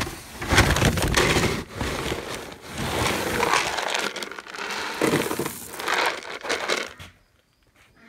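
Rustling of a plastic feed bag and the rattle of feed pellets being scooped into a green plastic bucket, a run of loud crinkling and crunching that stops about seven seconds in.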